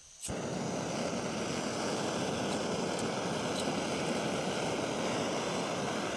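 A click, then a canister gas camping stove's burner catches and burns with a steady hiss under a pot.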